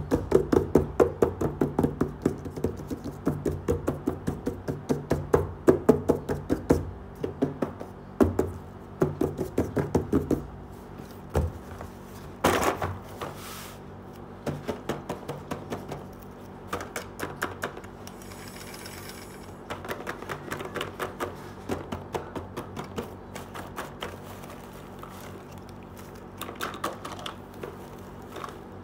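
Fingers tapping and drumming on a cardboard box lid, several quick taps a second. About halfway through, the taps give way to lighter clicks and rustling as plastic toy pieces are handled inside the box.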